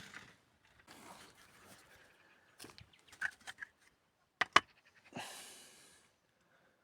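Bricklaying work sounds: scraping of brick and tools, with two sharp knocks about four and a half seconds in, then a second-long scrape that fades out.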